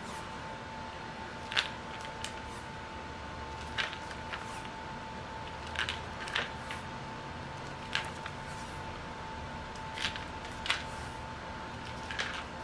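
Scattered light clicks and taps of small objects being handled, about one every second or two, over a steady faint hum.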